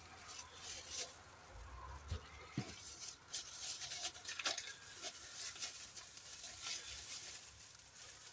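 Handling noise: scattered soft clicks, taps and rustling against the recording device.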